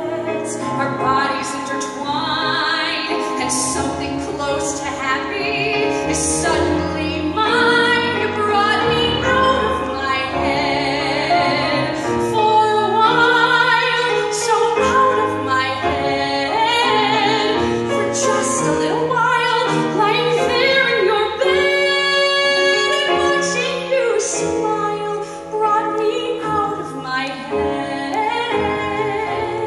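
A woman singing a musical-theatre song solo with grand piano accompaniment, holding long notes over the piano throughout.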